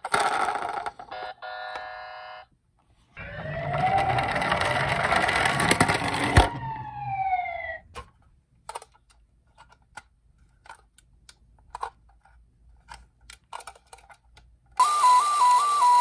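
Battery toy ambulance sirens. An electronic wail rises in pitch for about three seconds, stops with a click and winds down. Then come a few light clicks and clatters of plastic toys in a cardboard box, and near the end a loud two-tone 'pee-po' siren starts, switching between high and low about twice a second.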